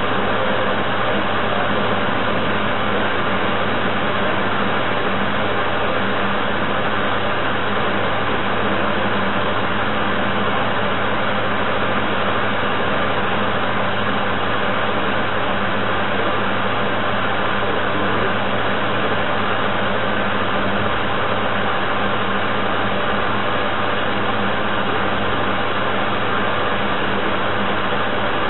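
Model paddle tug's onboard drive motor running steadily while under way, picked up close by the camera on board: an even hum with a whine that holds the same pitch and level throughout.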